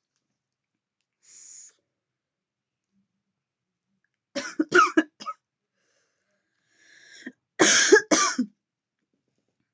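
A woman coughing from vape vapour: a quick burst of three or four coughs about halfway through, then two loud, deep coughs near the end, with faint breaths before each burst.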